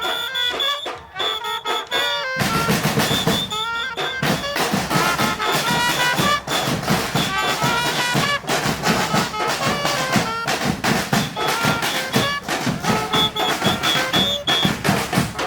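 Carnival murga band playing brass and drums. A lighter brass passage gives way about two seconds in to the full band, with dense, steady drumming under the horns.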